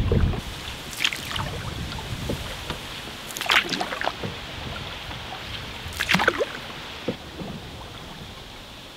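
Canoe paddle strokes in calm river water: three splashy strokes about two and a half seconds apart. Wind on the microphone drops away just after the start.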